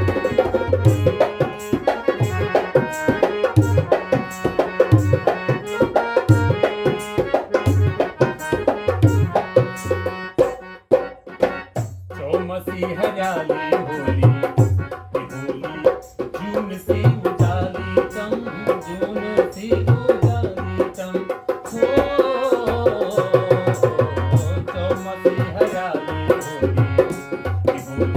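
Instrumental interlude of a Garhwali folk song: a harmonium plays the melody in steady held notes over a driving dholak rhythm, with a short break in the drumming about 11 seconds in.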